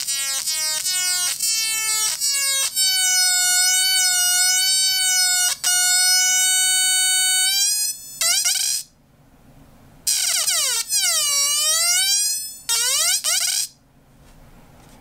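Atari Punk Console built around a 556 timer chip, buzzing and squealing through a small 8-ohm speaker as its potentiometers are turned. The pitch first jumps between short notes, then holds one steady tone for several seconds. After a short break it swoops down and back up, gives a short rising squeal, and stops.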